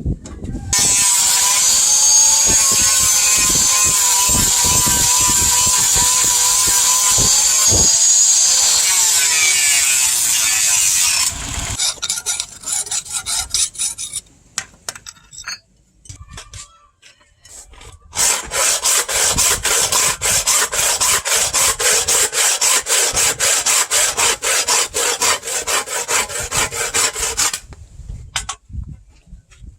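Hand tools working a steel knife blade. A steady tool sound with a wavering whine runs for about ten seconds. Then come scattered quieter scrapes, then a long run of quick, even scraping strokes, as of filing or sawing on steel.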